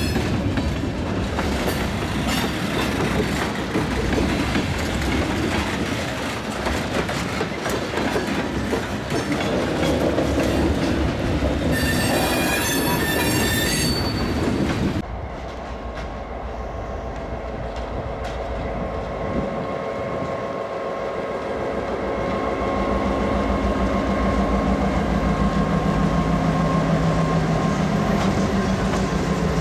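Freight cars rolling past with steady wheel and rail clatter, and a wavering wheel squeal for about two seconds shortly before the halfway point. The sound then changes abruptly to a diesel locomotive running with a steady engine hum as the train moves past.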